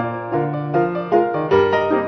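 Background music played on piano: a melody of short notes over longer bass notes.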